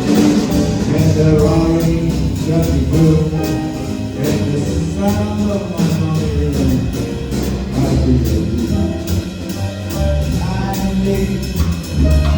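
A band playing live: a melody line over bass and drums with a steady beat, the song running on without lyrics.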